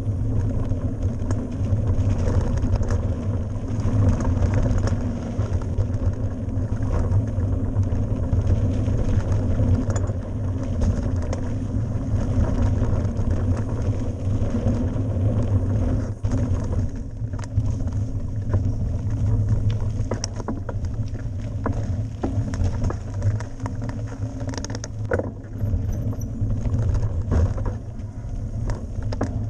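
Mountain bike ridden fast on a dirt forest trail, heard from a camera on the bike: wind buffeting the microphone in a steady low rumble, with tyre noise on the dirt and scattered rattles and knocks from the bike over bumps, more of them in the second half.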